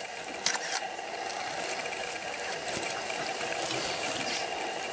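Porcupine rattling its raised quills as a warning to a leopard: a steady, dry rattle that grows slightly louder, with a couple of sharp clicks about half a second in.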